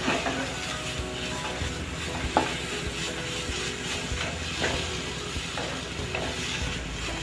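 A spatula stirs and scrapes a thick spice masala as it roasts and sizzles in a nonstick frying pan, with a sharper scrape about every two seconds.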